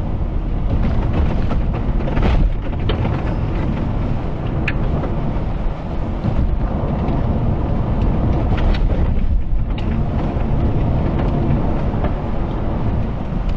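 Car driving over a rough dirt road, heard from inside the cabin: a loud, steady rumble of tyres and suspension, with scattered sharp clicks and knocks.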